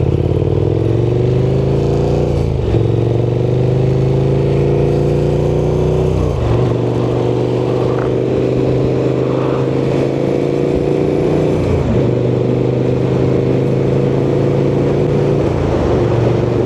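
KTM motorcycle engine pulling away and accelerating, its pitch climbing and then dropping sharply at each of about four upshifts. It is picked up by a DJI Mic Mini inside the rider's helmet.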